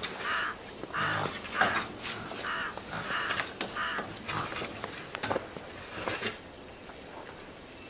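A run of about seven short, harsh caw-like animal calls, roughly half a second apart, over the first four seconds, followed by a few faint knocks.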